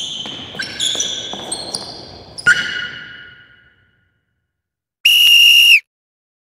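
Intro sting: a run of bright, bell-like struck notes, the last and loudest about two and a half seconds in, ringing out and fading. After a pause comes a single steady whistle blast of under a second that cuts off suddenly.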